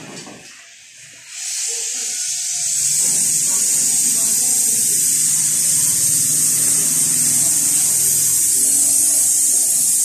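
Gas welding torch flame hissing steadily while brazing a freezer's refrigerant pipe joint. The hiss comes in about a second in and builds to full strength over the next two seconds.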